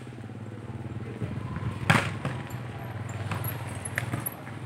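A small engine running steadily with a low hum. One sharp knock about two seconds in, and fainter clicks.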